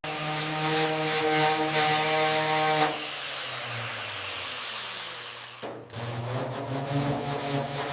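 A handheld power tool's electric motor running steadily for about three seconds, dropping to a quieter spell, then starting up again about six seconds in, with a few short clicks.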